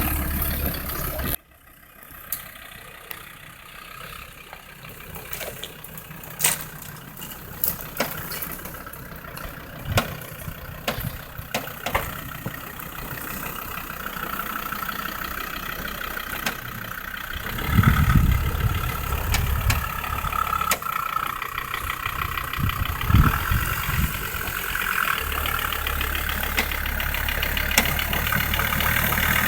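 Land Rover Defender 130 running off-road: a low engine rumble cuts off abruptly about a second and a half in. A quieter stretch of scattered knocks and clicks follows, with brief low surges, before the engine rumble builds up again near the end.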